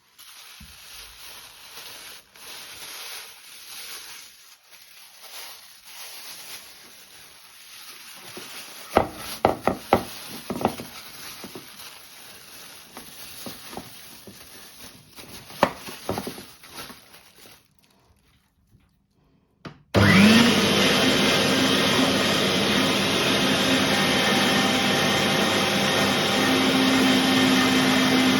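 Handling noises with several sharp clatters, then a short pause before an electric meat grinder's motor starts with a quick rising whine and runs steadily and loudly; its tone steps up slightly near the end.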